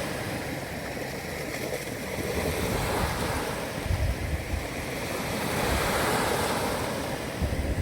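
Ocean surf breaking and washing ashore, the noise swelling and ebbing with each wave. Wind buffets the microphone in low rumbles about four seconds in and again near the end.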